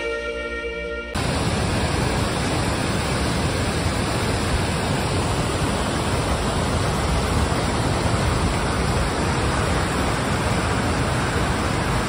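Waterfall on the Canim River, heard close to the brink: a loud, even rush of falling water that cuts in suddenly about a second in, after the last notes of a guitar tune.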